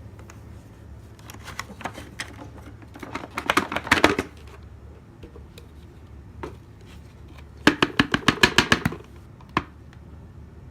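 Two bursts of rapid clicking and rattling, the second about four seconds after the first, over a low steady hum.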